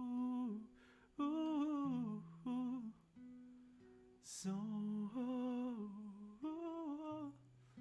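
Male voice humming a wordless melody with vibrato in short phrases over a softly played classical guitar, with an audible breath about four seconds in.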